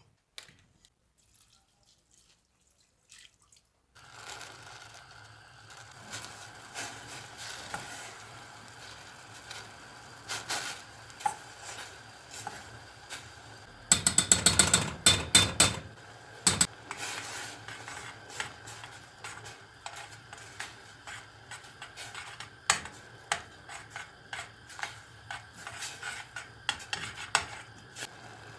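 Kitchen work: a metal utensil clinks and scrapes against dishes and pans, with stirring over a steady low background. It starts after about four seconds of near silence, and a dense run of rapid clinks about halfway through is the loudest part.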